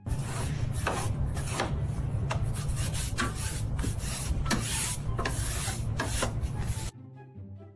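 Rough rasping and scraping in many quick, irregular strokes that stops suddenly about seven seconds in.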